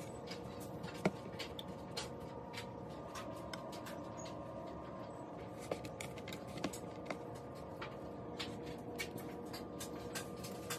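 Fingers dredging green tomato slices in flour and seasoned fish-fry breading in plastic bowls: soft, irregular scratching and ticking, with one sharper tap about a second in, over a steady background hum.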